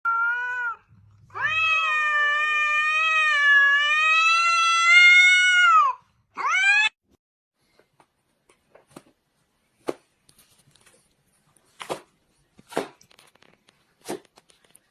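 Domestic cat meowing: a short meow, then one long drawn-out meow that wavers in pitch, then a brief rising meow. A handful of faint sharp clicks or taps follow in the second half.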